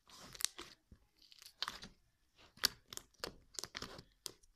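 Fingers pressing and squishing a large black slime in its plastic tub, giving an irregular run of short crackles and pops.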